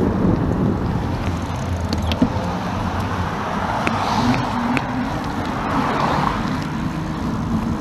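Road traffic and riding noise heard from a moving bicycle: a steady low rumble with wind on the microphone, cars passing with swells of tyre noise about four and six seconds in, and a few light clicks.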